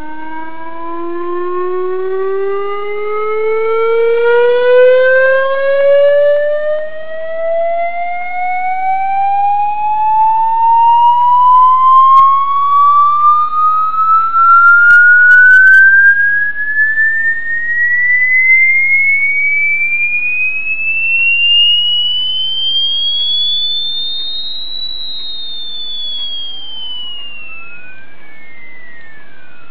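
Electronic test-tone sweep: a single tone rising slowly and steadily in pitch from low to high over about 25 seconds, with fainter overtones above it. Near the end a second tone glides quickly down from high to low while another starts climbing.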